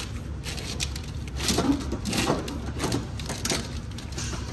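Corrugated plastic wire loom and wires rustling and scraping against engine parts as they are pushed down through the engine bay by hand, with a cluster of irregular crackles and knocks in the middle.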